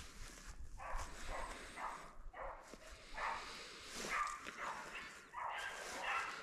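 Beagles baying in a string of short calls, about one or two a second: the bawl of hounds running a rabbit.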